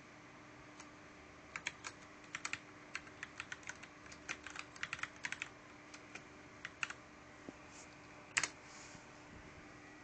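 Typing on a mechanical keyboard with Cherry MX Red linear switches: irregular key clacks from keycaps bottoming out, in quick runs from about a second and a half in until about seven seconds, then one louder knock about eight seconds in.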